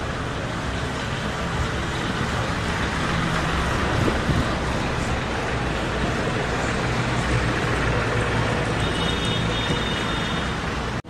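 Steady din of a crowded temple: many people murmuring and moving, with no single voice standing out. A brief faint high ringing comes in near the end.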